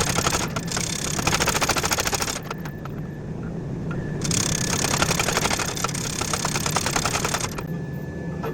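Power hammer pounding a hot billet in two rapid runs of blows, the first lasting about two seconds and the second about three after a short pause, over a steady low hum. This is the first forge-welding pass, fusing a wrought iron jacket to a high-carbon steel core.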